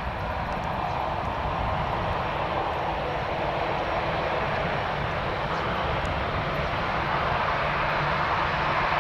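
Airbus A320 airliner's jet engines running as the aircraft rolls along the ground, a steady jet noise that grows gradually louder.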